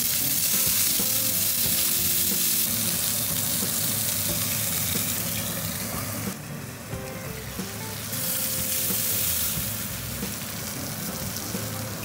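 Beef burger patties sizzling as they fry in a hot ridged cast-iron grill pan. The sizzle drops away briefly about six seconds in, comes back, and then settles lower.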